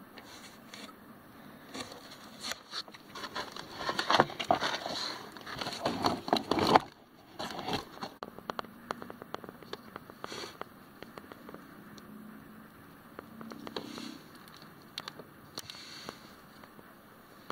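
Hands working plastic door-panel parts and wiring-harness connectors: a dense stretch of clicking, rattling and scraping a few seconds in, then scattered single clicks.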